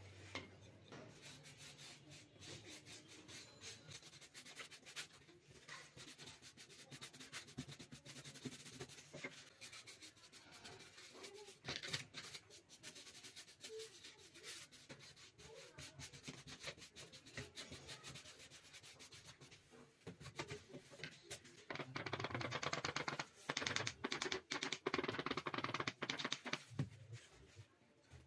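Paintbrush and hands rubbing and scraping on thermocol (polystyrene foam) cut-outs, with scattered clicks and taps; the rubbing turns faster and louder for several seconds near the end.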